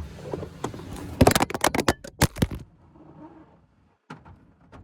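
Rapid clatter of about ten sharp clicks and knocks lasting about a second and a half, from the phone recording the work being knocked about in the engine bay. The sound then suddenly turns dull and much quieter, with one more click near the end.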